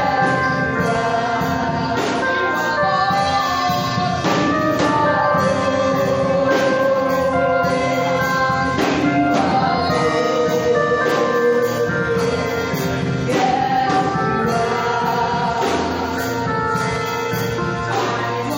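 Gospel music: a choir singing with instrumental backing and percussion, struck accents recurring about every two seconds.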